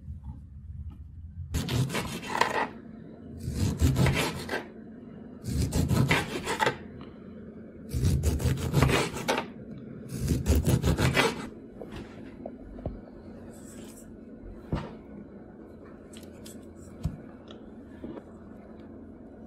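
Serrated knife sawing through a lemon on a cutting board: five cuts of about a second each, a couple of seconds apart, followed by a few faint taps.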